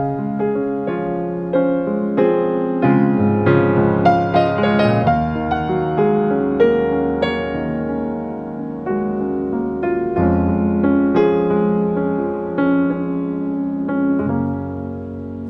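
Background piano music: soft, slow notes and chords played on a piano or electric piano.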